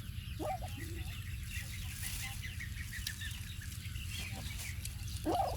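Chickens clucking, with many short high chirps throughout, typical of chicks cheeping. Two short rising calls come about half a second in and again near the end, over a steady low hum.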